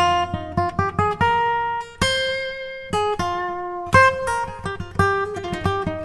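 Acoustic guitar music: a run of quick plucked notes, with a strummed chord about two seconds in left to ring for nearly a second.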